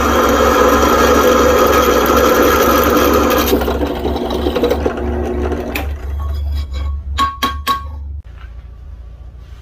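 Drill press boring through a steel knife blank cut from a circular saw blade, the bit cutting steadily for about six seconds. Then come three sharp metallic clinks, and the motor's hum stops near the end.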